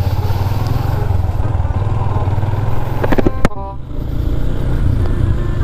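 Yamaha MX King 150 motorcycle's single-cylinder four-stroke engine running steadily under way, heard from the rider's position with wind noise. About three and a half seconds in there is a short sharp click, and the engine note drops briefly just after it.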